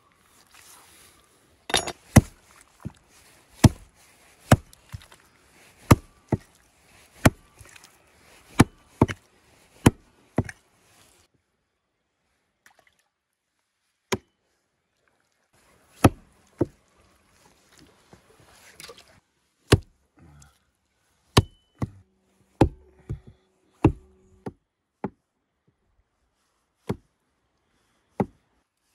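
Hatchet chopping through beef and bone on a wooden board. A quick run of sharp strikes comes a little under a second apart, then after a pause slower single blows with gaps between them.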